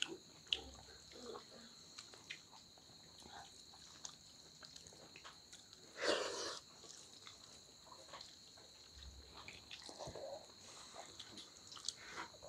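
People eating rice and dal by hand from steel plates: faint chewing and lip-smacking, with fingers mixing rice and tapping on the plates. A louder mouth noise comes about six seconds in as a handful goes into the mouth.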